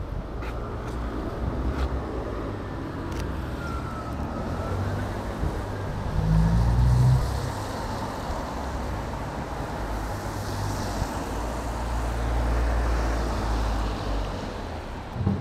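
City street traffic: vehicles running past with a steady rumble, the loudest one going by about six to seven seconds in, and a few sharp clicks early on.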